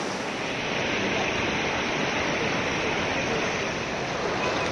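Shallow, rocky mountain river flowing fast over stones and boulders: a steady rush of water through rapids.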